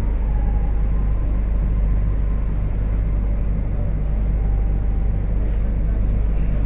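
Metro train car running, heard from inside: a steady low rumble, with a faint whine near the start that slides a little lower in pitch.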